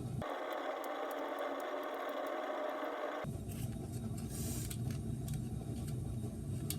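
Light metallic clicks and scraping as a flathead screwdriver pries up the tabs of thin retaining washers on a car's wheel studs, over a steady low background rumble. The rumble cuts out for about three seconds near the start, then returns.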